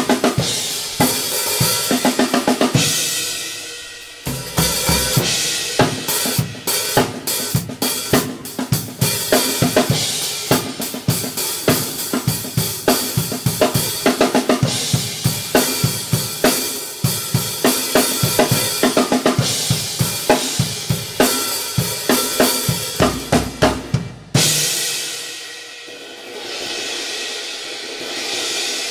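Drum kit played alone with no backing track: kick, snare, toms and hi-hat in a steady groove with cymbal crashes on Sabian HHX cymbals, easing off briefly about four seconds in. About twenty-four seconds in the playing ends on a final crash, and the cymbals ring on, swelling once more near the end.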